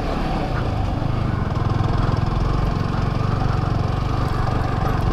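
Yamaha R15 V3's single-cylinder engine running steadily.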